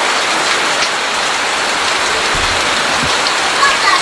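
Steady rain falling, an even hiss of drops on the ground.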